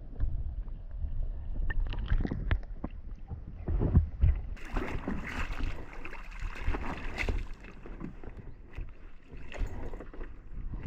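Knocks and bumps on a small boat, with a few seconds of rushing, splash-like noise in the middle.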